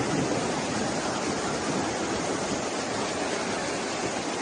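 Muddy flash-flood torrent rushing past in a steady, unbroken rush of water.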